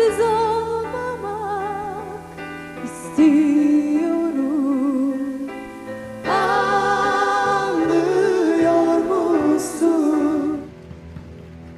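A woman sings a Turkish pop song over band backing, holding long notes with vibrato. The music drops much quieter near the end.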